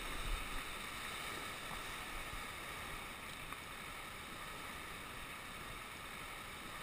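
Steady rushing of sea surf washing over a flat rocky shore ledge.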